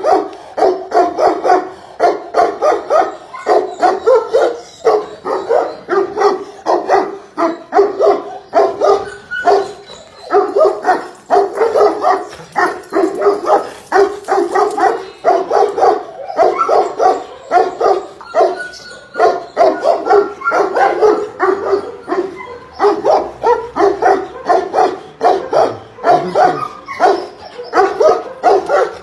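A large dog barking over and over in a fast, steady string of deep barks, about three a second.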